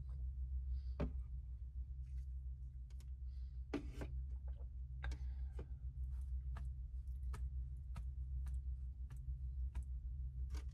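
Light clicks and soft knocks of an aluminium drink can and bamboo skewers being handled and set down on a wooden tray, the fullest knock about four seconds in, over a steady low hum.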